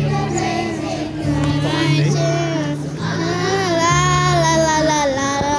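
Children's choir singing with musical accompaniment that holds steady low bass notes changing every second or so.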